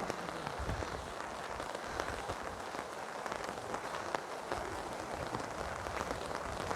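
Heavy rain falling steadily, with the sharp ticks of individual drops striking close by.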